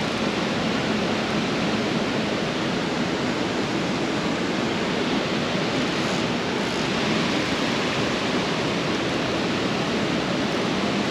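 Steady rushing noise with no distinct events, such as wind or moving water picked up outdoors.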